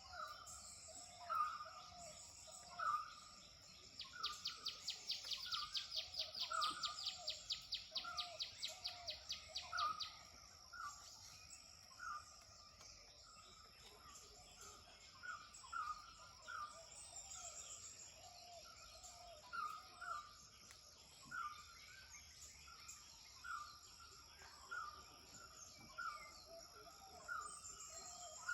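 Dawn birdsong: birds repeating short calls about once a second, with a rapid rattling trill from about four to ten seconds in, over a steady high-pitched hum.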